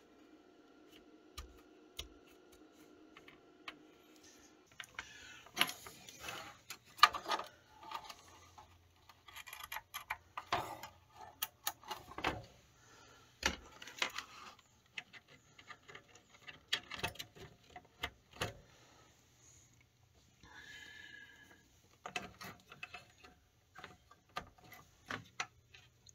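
Faint steady hum at first. Then small metal tools and bits click and clatter on a wooden workbench as they are picked up and cleared away, in irregular knocks and clinks.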